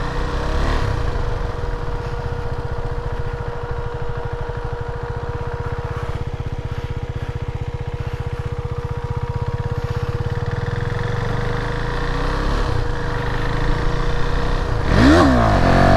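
A KTM motorcycle's single-cylinder engine running as the bike pulls away and rides slowly, heard from the rider's position. About a second before the end the engine note dips and then rises as the throttle changes.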